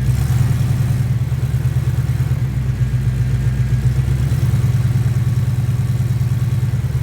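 1989 Chevy C1500 engine running steadily at idle in gear, its exhaust pulsing evenly, with the valve-tick-like ticking of an exhaust leak at the header collectors. The exhaust has its catalytic converters deleted and Flowmaster 40 mufflers.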